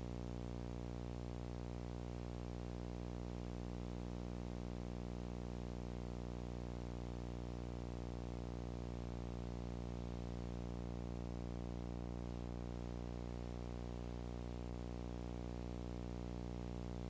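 Steady electrical mains hum: a low, unchanging buzz with many overtones and a faint hiss, with no music.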